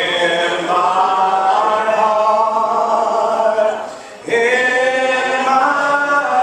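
A congregation singing a hymn a cappella, without instruments, in long held notes, with a brief break between phrases about four seconds in.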